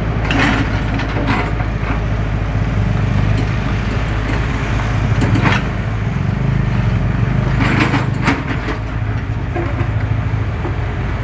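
Heavy diesel excavator engine running steadily, with brief metallic clanks and rattles a few times as it works.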